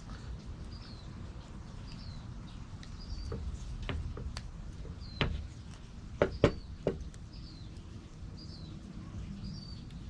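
A bird chirps over and over in the background, one short call a little under once a second. There are several sharp clicks a little past the middle, from a metal multi-tool being handled.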